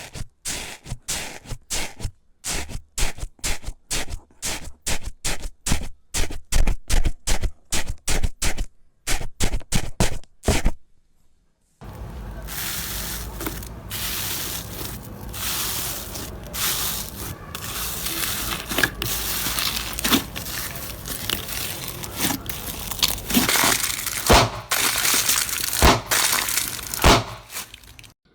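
Slime being handled close to the microphone. First comes a run of sharp crunching pops at about three a second. After a brief break it turns into a continuous crackling squish with scattered sharp snaps.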